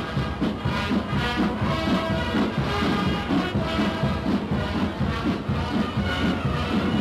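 Massed military brass band playing, heard on a worn early-1930s film sound recording.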